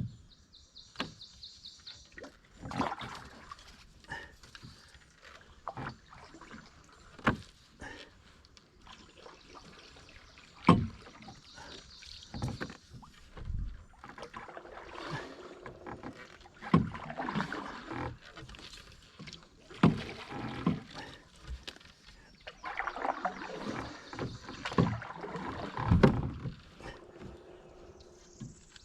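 A canoe being paddled, with swishing, splashing strokes and scattered sharp knocks.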